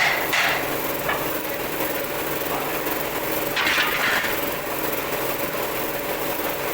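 A small motor running steadily, with two short louder bursts, one near the start and one about halfway through.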